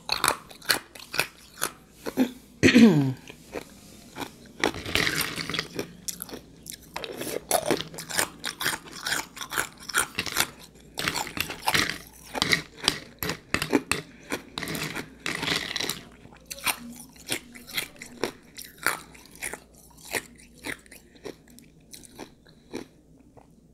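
Ice being crunched and chewed in the mouth: a long run of irregular sharp crunches. About three seconds in, one short sound falls in pitch.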